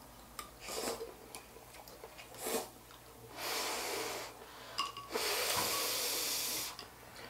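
Mouth sounds of eating hot instant noodles: noisy slurps and hissing breaths drawn in and blown out through the mouth to cool the burning noodles, in several bursts that grow longer, the longest lasting over a second and a half near the end.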